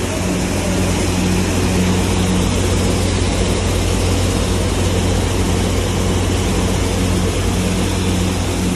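HELIDA 15ST combined seed cleaner running while processing wheat: a steady, loud electric hum from its vibrating screen motors over an even rushing noise, with a higher hum that pulses on and off.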